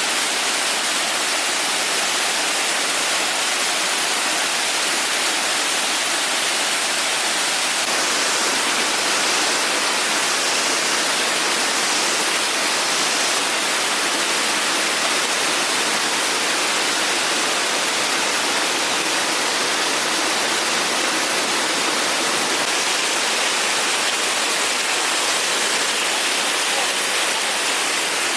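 Waterfall rushing: a steady, loud hiss of falling water, its tone shifting slightly about eight seconds in.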